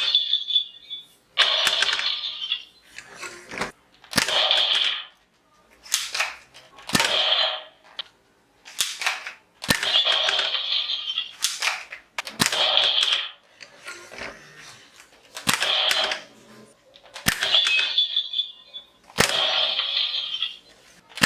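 A plastic toy scoring target is being hit over and over, about a dozen times. Each sharp click or hit sets off a short, bright electronic sound effect from its small speaker, with a new one every second or two.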